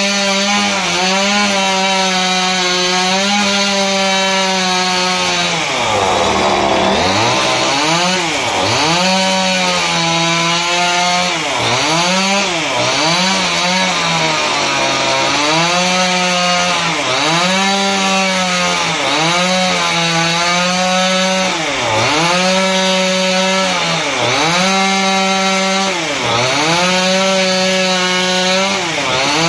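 Small chainsaw running at full speed while cutting down into a block of wood. Its pitch sags each time the chain bites in and recovers as it eases off, over and over, about once every one to two seconds, with a longer, deeper dip about six seconds in.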